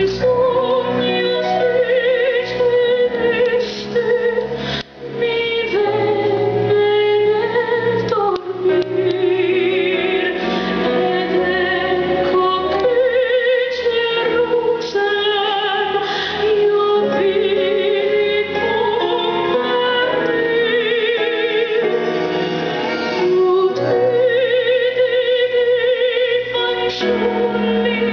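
Mixed church choir singing a worship song into microphones, women's voices prominent, held notes with vibrato over instrumental accompaniment.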